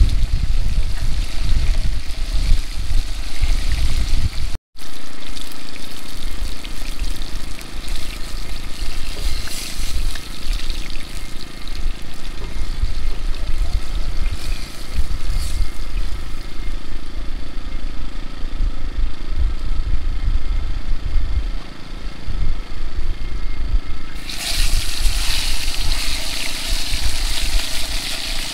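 Fish frying in hot oil in a pot on a camp stove, a steady sizzling hiss that grows brighter and louder near the end, over a heavy, uneven low rumble.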